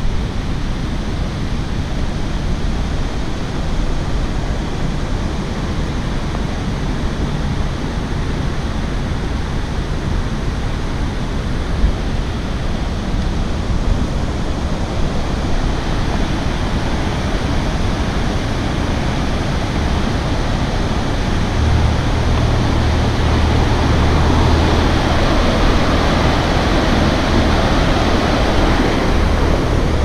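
Steady rushing of water from a mountain stream or waterfall. A low steady hum joins in about two-thirds of the way through.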